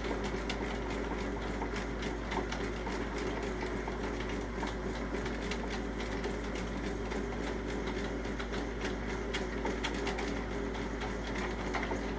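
Electric drain snake running: its motor hums steadily while the 1/4-inch cable spins in a shower drain, with a scatter of light clicks.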